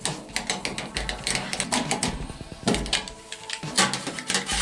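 Irregular clicks, taps and light knocks of hands handling a clothes dryer's parts and wiring during reassembly.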